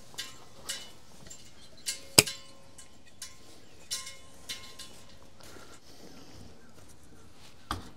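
Sharp metallic clicks and clinks from the fuel tank lid being worked open on a vintage Massey Ferguson tractor. The loudest click comes about two seconds in and leaves a faint ring.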